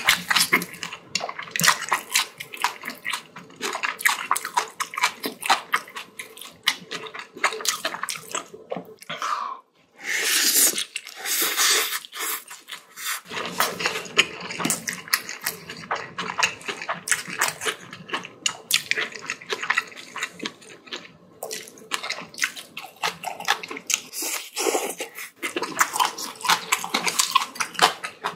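Close-miked wet chewing of spicy bibimbap and kimchi: a dense run of smacking mouth clicks, broken by a brief pause about ten seconds in.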